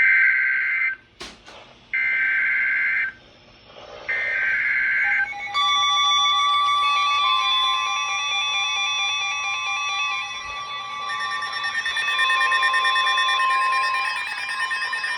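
Emergency Alert System signal: three one-second bursts of the digital data header, about a second apart, then a long steady multi-pitched attention tone that starts about five seconds in. Together they announce a severe thunderstorm warning.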